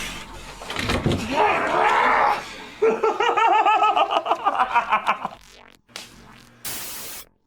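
A person laughing in a quick run of ha-ha-ha over background music. The laugh runs for about two and a half seconds in the middle, and a noisy stretch comes before it.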